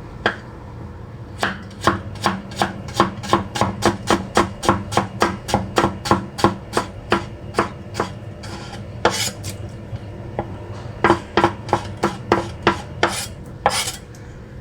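Knife slicing papaya in a quick, regular run of strokes, about three a second, that stops about eight seconds in and starts again a few seconds later. A couple of longer scraping strokes fall in the gaps.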